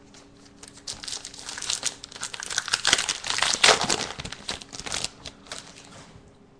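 Crinkling and tearing of a football trading-card pack wrapper being ripped open, a dense crackle that builds, is loudest about three and a half seconds in, then eases off.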